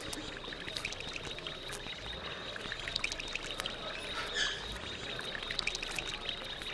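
Electroacoustic montage of processed field recordings: a dense hiss with scattered clicks and a steady high tone, and a brief brighter swell of noise a little past the middle.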